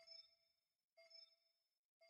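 Faint electronic chime repeating about once a second, each note ringing briefly and fading.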